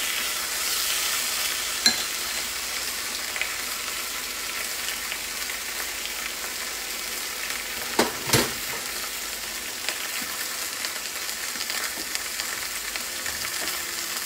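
Rump steak sizzling steadily in a hot grill pan, freshly turned over. There is a sharp click about two seconds in and a couple of knocks around eight seconds.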